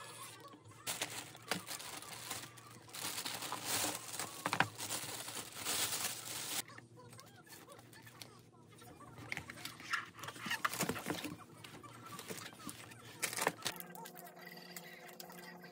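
Thin plastic carrier bag rustling and crinkling as a pizza delivery is unpacked, then lighter crackles and clicks from handling the cardboard pizza boxes and slices. A faint steady hum comes in near the end.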